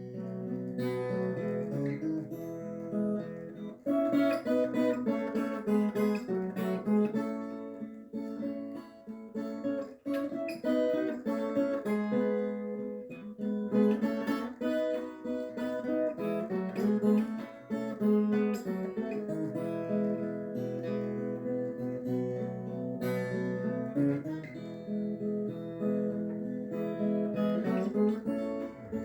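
Acoustic guitar music, plucked and strummed, with no singing.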